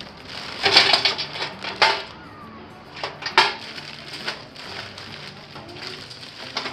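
Crinkling, rustling and sharp light clinks as a metal barbecue chimney starter is loaded by hand. The sounds come in irregular clusters, busiest in the first two seconds and again a little past halfway.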